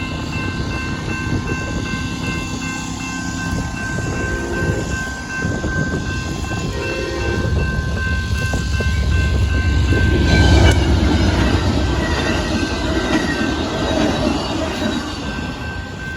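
Amtrak Texas Eagle passenger train passing, the rumble of its wheels on the rails building to its loudest about ten seconds in and then fading. Steady high ringing tones run underneath throughout.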